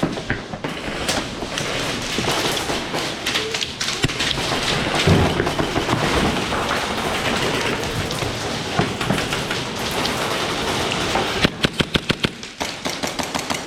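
Dense rustling and crackling, as of dry brush and leaves being pushed through, with a quick run of sharp clicks near the end.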